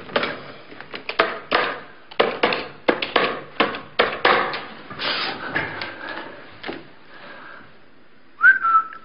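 A desk telephone handled and dialled: a run of irregular clicks and knocks as the handset is lifted and the number is entered, then a short tone near the end.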